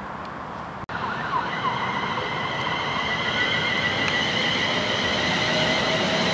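London Midland Class 350 Desiro electric multiple unit starting to pull away. Starting about a second in, its traction equipment gives a steady high whine of several tones that grows gradually louder, with a few short squeals at the start.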